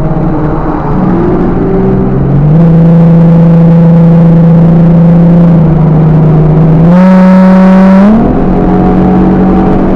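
Ford Mustang V8 engine and exhaust running at held revs, its pitch stepping up and down. About seven seconds in, a louder, raspier note rises for about a second, then drops back.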